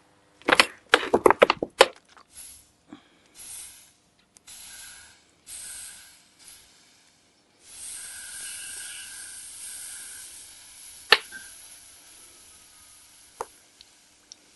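Metal parts clattering briefly about half a second in. Then a hot, freshly made steel steering tie-rod end hisses and sizzles as liquid is poured over it from a plastic bottle to cool it: first in short spurts, then steadily, fading away near the end. A sharp click comes about eleven seconds in.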